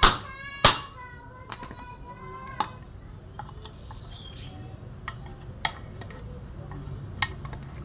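Two sharp hammer knocks at the flywheel hub of a disassembled Stihl 440 chainsaw, then a few light metallic clinks as a wrench is fitted onto the flywheel nut.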